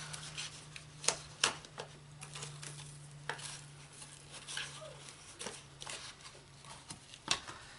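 Light rustling and a few short clicks and knocks as hands handle markers, ribbon and a paper gift bag, over a steady low hum.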